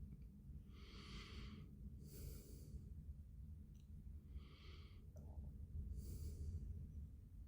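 Faint breathing close to the microphone: four soft breaths, in and out, about every one and a half to two seconds, over a low steady hum.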